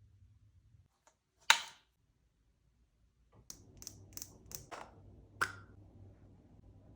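A sharp click about one and a half seconds in, then after a pause a quick run of lighter clicks and taps, like small objects being handled and set down.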